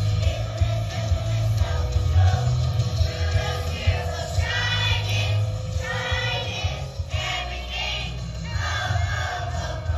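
Children's choir singing together over an amplified musical accompaniment with a strong, steady bass.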